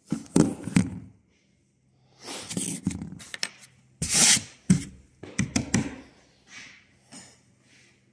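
A string of irregular knocks, taps and short rubbing scrapes from the camera being handled and pressed against a plywood sheet.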